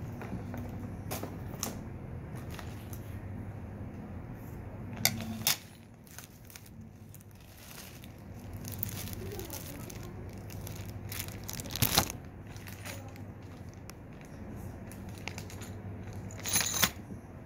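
Plastic packaging and bubble wrap rustling and crinkling as antenna parts, a coiled coaxial cable and a bag of metal mounting hardware are handled, with scattered clicks and three louder knocks about five seconds in, midway and near the end. A steady low hum sits underneath.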